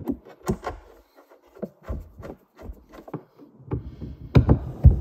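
Handling noise as a striker rod is pressed into its plastic mount in a motorcycle trunk lid: scattered short knocks, clicks and rubs of metal against plastic, loudest in a cluster near the end.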